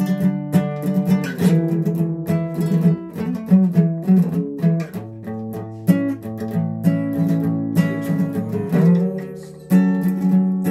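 Acoustic guitar being played, chords plucked and strummed with the notes left ringing and changing every second or so; the sound fades briefly about nine seconds in before a fresh strum.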